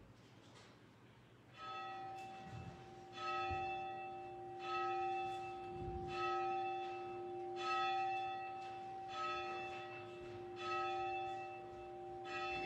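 A church bell tolling slowly, one stroke about every second and a half, each ringing on into the next. It starts about a second and a half in.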